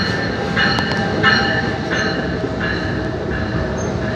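New Jersey Transit bilevel passenger train rolling along the station platform: a steady rumble of wheels on rail, with a high metallic squeal that cuts in and out every half second or so and a few sharp clicks.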